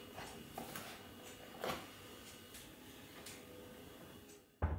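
Containers knocking lightly against a kitchen wall-cupboard shelf as they are put away, a few scattered taps, then a cupboard door shutting with a dull thump near the end.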